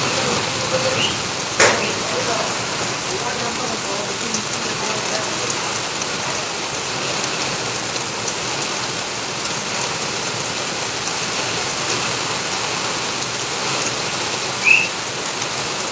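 Heavy rain falling steadily on a paved yard, a constant hiss. A single sharp tap about a second and a half in, and a short high chirp near the end.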